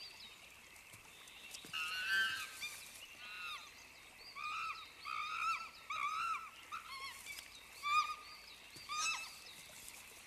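Monkeys calling: clusters of short, arched squealing chirps, coming in quick runs from about two seconds in until near the end, over a steady high background hiss.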